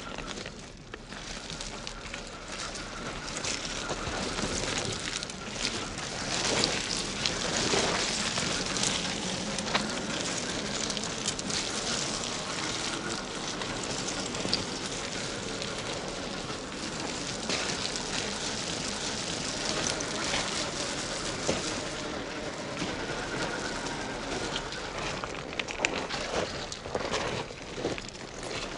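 Tyres of a 1/10-scale Traxxas TRX-4 RC crawler crunching and clattering over loose river stones and gravel, a continuous crackle full of small pebble clicks. A faint whine from its electric motor and gearbox comes and goes under it.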